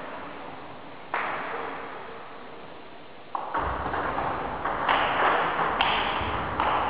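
Table tennis rally in a reverberant sports hall. A sharp ball strike about a second in echoes off the walls; from about halfway comes a busier run of bat hits and ball bounces, with thuds of the players' feet on the wooden floor.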